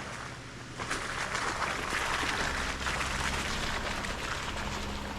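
Jeep Wrangler JK driving through slush on a snowy dirt trail: tyres hissing and crackling through the wet snow, loudest from about a second in until near the end, over the steady low running of the engine.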